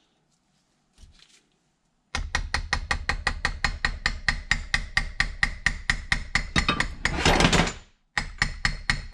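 Brass hammer rapidly tapping a steel punch, about five or six blows a second, each with a short metallic ring, driving a stuck pinion gear out of a three-jaw lathe chuck body. The tapping starts about two seconds in, stops briefly near the end, then starts again.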